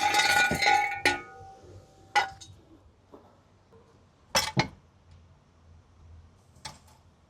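Steel tools and jack gear clanking as they are handled: a loud ringing metal clank at the start that dies away over about a second, then single sharp clinks about two seconds in, a quick pair of clinks past the middle, and one more near the end.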